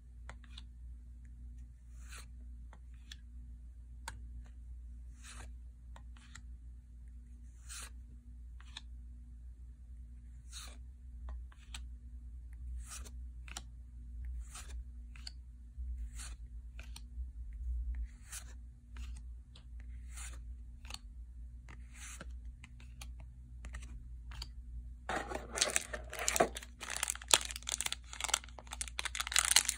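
Yu-Gi-Oh trading cards slid one behind another in the hand, each giving a soft snap about once a second. Near the end a gold foil booster pack crinkles loudly as it is torn open.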